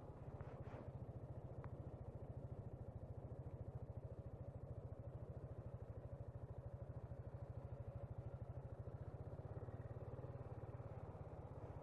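Piaggio MP3 500 scooter's single-cylinder engine running steadily at low revs, a regular low throb with no rise or fall. There are a couple of faint ticks in the first two seconds.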